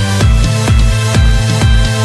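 Electronic dance music with a steady kick drum about twice a second under sustained synth tones.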